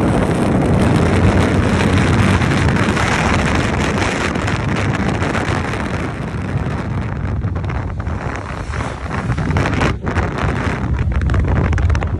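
Wind rushing and buffeting over the microphone of a moving motorcycle, with the bike's engine and road noise underneath. It dips briefly about ten seconds in.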